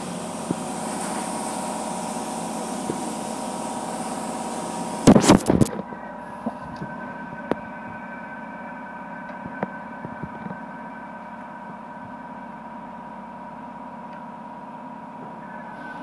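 Automatic car wash tunnel: water spray hissing against the glass, a short burst of loud clattering about five seconds in, then the spray cuts off suddenly, leaving a steady machinery hum with a thin, even tone and a few light clicks.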